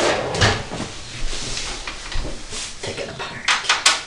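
Knocks, clicks and rattles of a desktop PC tower case being handled, with a quick run of sharp clicks near the end.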